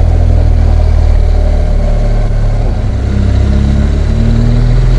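BMW R1200GS boxer-twin engine running steadily at riding speed, under a heavy low rumble of wind.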